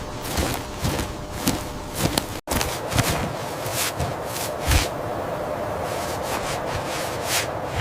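Irregular footsteps with rubbing and scraping noises. The sound drops out for an instant about two and a half seconds in, and after that a steady hiss lies under the steps.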